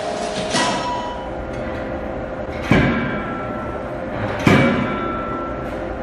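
CNC fully hydraulic closed-die forging hammer striking: a lighter blow near the start, then two heavy, deep blows just under two seconds apart, each ringing briefly, over a steady machinery hum.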